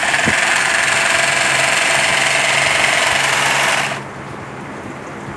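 Rice-bag sealing machine running with a steady, loud buzz for about four seconds, then stopping.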